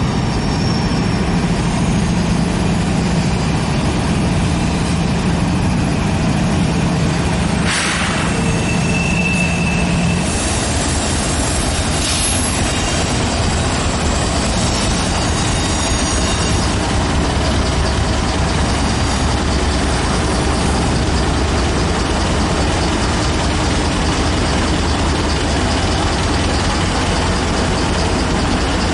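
Diesel-electric freight locomotives rolling past at close range: a steady engine drone with the rumble and rattle of wheels and cars on the rails. About ten seconds in the sound changes to a deeper, lower engine drone as a second locomotive comes by.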